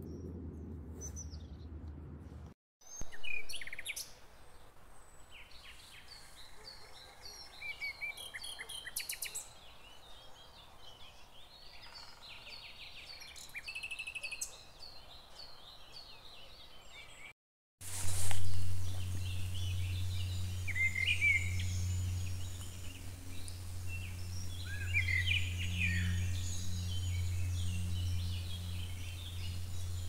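Small birds chirping and singing, in short repeated calls, through several spliced outdoor clips with two abrupt cuts. A steady low hum sits under the first and last parts, and a brief loud bump comes just after the second cut.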